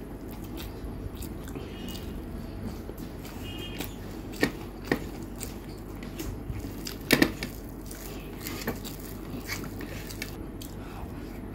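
Close-up eating sounds: chewing with the mouth closed and fingers mixing rice and omelette on a plate, over a steady low background hum. A few sharp clicks stand out, the loudest about seven seconds in.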